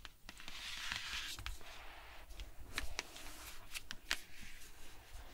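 Long fingernails scratching and tapping on the cover of a hardcover picture book: a rustling scratch with many sharp nail clicks. About four seconds in, the book is lifted and turned over.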